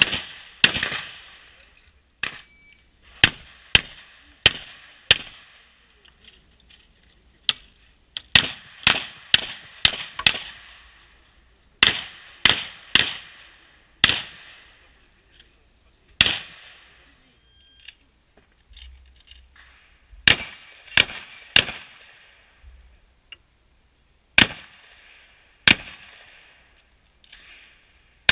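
Shotgun fired in quick strings, some shots about half a second apart, with pauses between strings; each sharp report has a short ringing echo.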